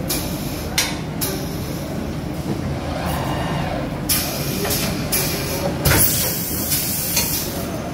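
Automatic sock boarding and pressing machine running with a steady mechanical hum, broken by several short hisses of its pneumatic actuators, most of them in the second half.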